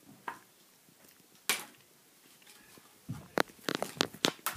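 Playing cards being flipped and slapped down on a wooden floor: a couple of isolated sharp snaps, then a quick run of sharp taps in the last second and a half.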